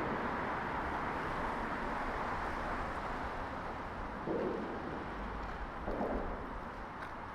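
Road traffic noise from a passing vehicle, slowly fading away. Two brief low calls come about four and six seconds in.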